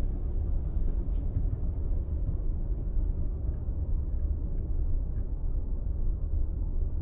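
Automatic car wash running: a steady low rumble with a hiss above it and a few faint ticks.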